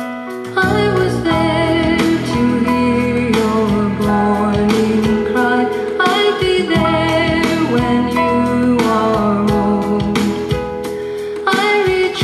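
A song: a singing voice over instrumental accompaniment, running throughout.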